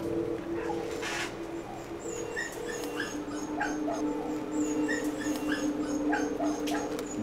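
Telephone ringback tone: a double ring that repeats about every two seconds while the call goes unanswered, over soft background music with short plucked notes.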